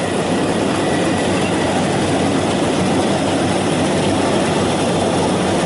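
Yanmar 82 rice combine harvester running steadily as it cuts ripe rice: a constant, even engine and machinery drone.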